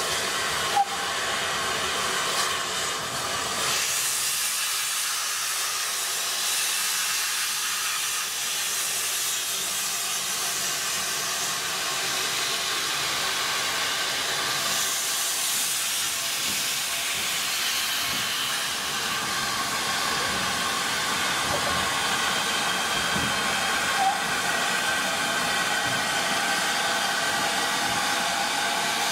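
Steam hissing steadily from the open cylinder drain cocks of GWR Saint class 4-6-0 steam locomotive No. 2999.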